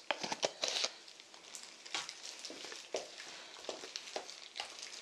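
Wooden spoon stirring thick red-pepper kimchi seasoning paste in a stainless-steel bowl: irregular wet squelches and scrapes, with a cluster of louder clicks and scrapes in the first second.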